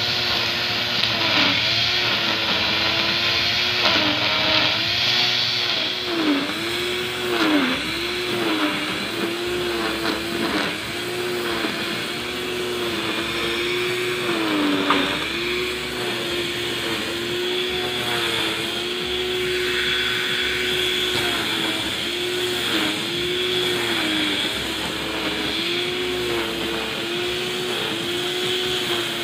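Electric angle grinder rigged as a grass trimmer, spinning nylon line through grass: a steady motor whine that sags briefly in pitch many times as the line bites into the grass and then picks back up.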